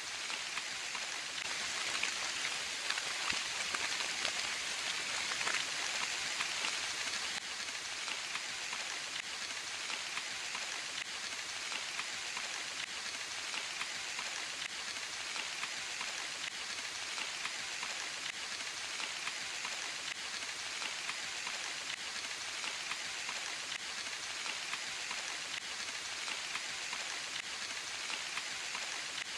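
Steady rain falling in a forest: a dense, even hiss of many drops with fine individual drop ticks through it, a little heavier for the first several seconds.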